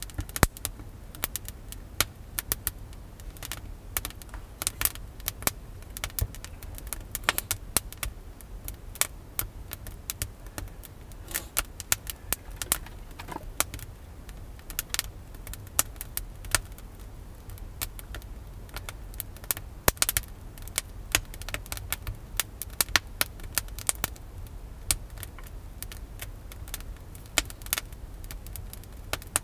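Open wood fire crackling, with irregular sharp snaps throughout over a low steady rumble.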